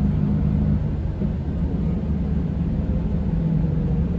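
Scania K410 diesel engine of an Irizar i5 coach running steadily: a low rumble with a constant hum, no change in pitch.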